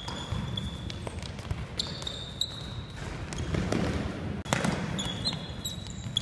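Indoor soccer on a gym floor: sneakers squeaking in short high squeaks, with the thuds of the ball being kicked. The loudest thud comes about four and a half seconds in.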